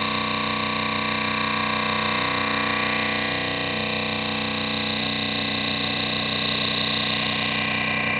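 Sustained noise drone from drone boxes run through an Elta filter and overdrive pedals, many steady tones held together. A bright, hissy top band swells and then dims about seven seconds in, and the middle tones start to waver shortly before.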